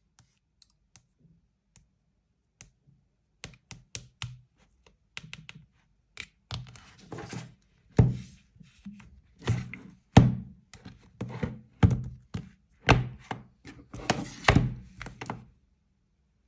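Handling noise: irregular knocks, thunks and clicks of objects on a hard surface, sparse at first, then louder and closer together from about the middle.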